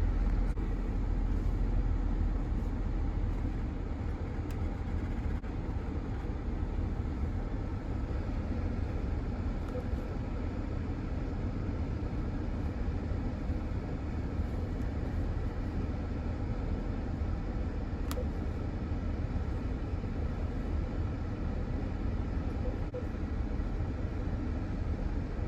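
2008 Chrysler Town & Country minivan running with a steady low rumble, checked for a recurring thump after a battery replacement. A single faint click comes about 18 seconds in.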